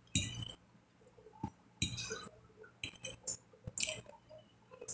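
Metal fork scraping and clinking against a glass plate about five times while scooping food, with soft chewing sounds in between.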